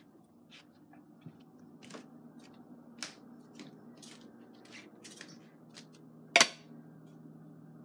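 A run of light clicks and taps, roughly two a second, with one sharp knock about six and a half seconds in, over a low steady hum.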